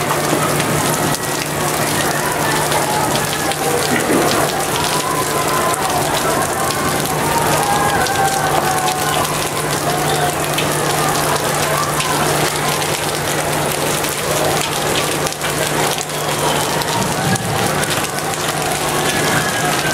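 Steady rain hissing and pattering on an open ship's deck, with a steady low hum underneath and faint distant voices.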